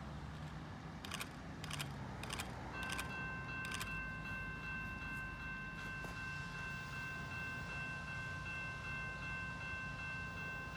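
Railroad grade-crossing warning bell starts ringing about three seconds in, after a few sharp clicks, and keeps up a steady ringing of several tones: the crossing is activating for an approaching train.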